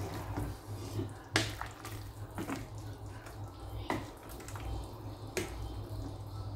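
A spoon stirring soup in a rice cooker's inner pot: faint liquid sloshing with a few light clicks of the spoon against the pot, over a low steady hum.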